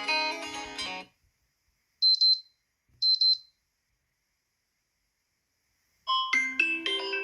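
Xiaomi Mi Mix 3 stock ringtones playing in turn: a plucked-string melody ends about a second in, two short high beeps follow a second apart, and after a pause a new bright melody starts near the end.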